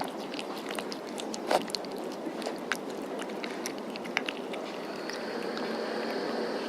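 Cat chewing its food: irregular sharp crunching clicks over steady background noise. A steady high tone joins in about five seconds in.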